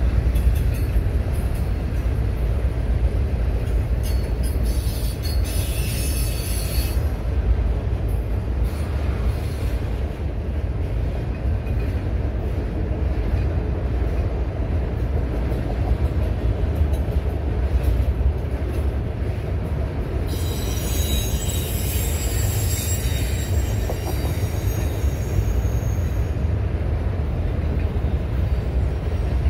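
Loaded autorack freight cars rolling past with a steady low rumble of wheels on rail. A high metal squeal from the wheels rises twice, briefly about four seconds in and again for several seconds from about twenty seconds in.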